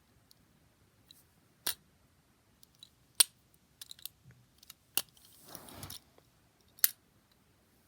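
Magnetic fidget rings snapping together with sharp clicks, four loud ones spread a second or two apart among lighter ticks, with a brief sliding rub a little past the middle.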